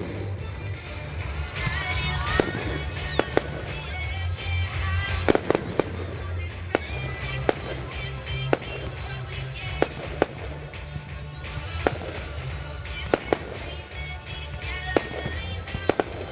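Fireworks and firecrackers going off, one sharp bang after another at irregular spacing, roughly one a second. Background music with a steady bass line plays underneath.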